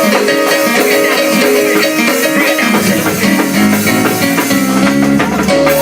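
Loud upbeat gospel praise music from a live church band: quick runs of held instrument notes over steady percussion, with a deeper bass line joining about three seconds in.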